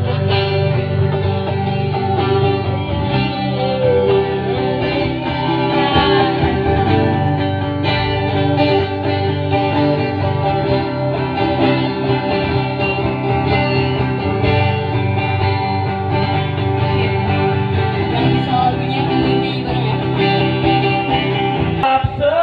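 Live band playing amplified music through a PA, with guitar to the fore.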